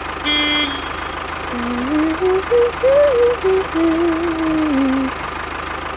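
Steady low engine-like drone with a fine regular ticking under it. A short bright beep comes just after the start, and a wavering tune of held, stepping notes follows, from about a second and a half in until about five seconds in.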